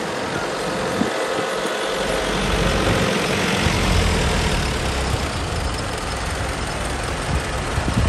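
Light truck's diesel engine running as the truck drives slowly toward the camera; the low rumble builds from about two seconds in and swells slightly in the middle.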